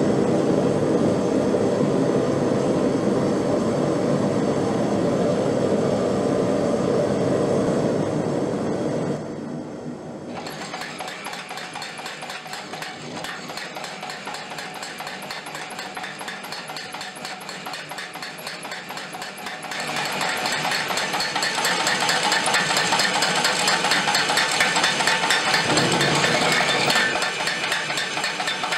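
A forge running with a steady rush for about the first nine seconds, then the Hardy Hammer, a homemade anvil-mounted power hammer with a 12-pound ram, striking a glowing block of hot steel in a fast, even run of blows. The blows get louder about twenty seconds in.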